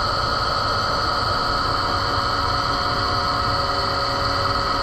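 Steady whine of a valve seat and guide machine running, several held tones over an even hiss and low rumble.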